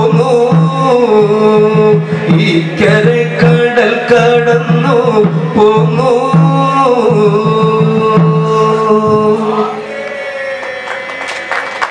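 Traditional Kerala devotional music: a melody sung over a steady low drone, with percussion striking in rhythm. About ten seconds in, the music drops to a quieter held note with quick percussion strokes.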